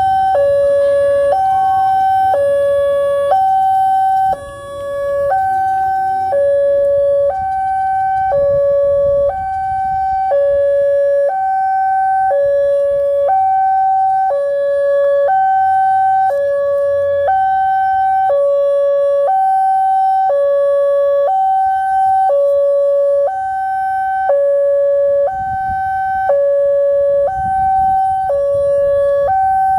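Indonesian railway level-crossing warning siren sounding a steady two-tone hi-lo alternation, switching between a higher and a lower tone about once a second.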